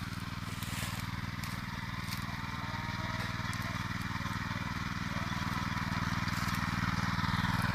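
Small single-cylinder engine of a Datsu motor tiller (rotary cultivator) running steadily, gradually growing louder.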